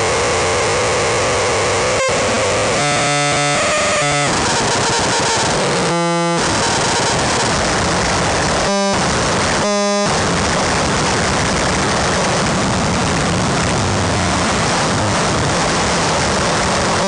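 Harsh noise music: a loud, dense wall of distorted electronic noise. It is broken several times, about 3, 6 and 9 to 10 seconds in, by short stuttering glitches with a buzzing tone.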